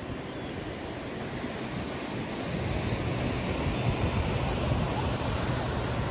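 Ocean surf washing and breaking on a sandy beach, with a low wind rumble on the microphone, getting louder about halfway through.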